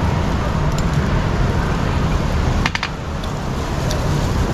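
Dining-room ambience with a steady low rumble and a few light clicks of tableware, a small cluster of them about two and a half seconds in.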